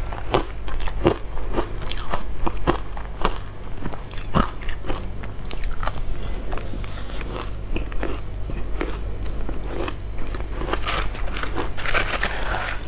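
Chunks of matcha-coated ice being bitten and chewed close to a clip-on microphone: an irregular run of sharp crunches and cracks, several a second.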